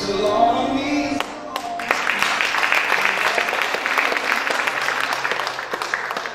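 A song with singing ends about a second in, and the church congregation breaks into sustained applause that fades toward the end.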